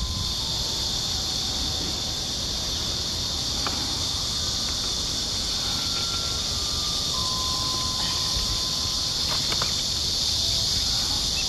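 Steady high-pitched drone of an insect chorus, with a few faint, short whistled notes now and then.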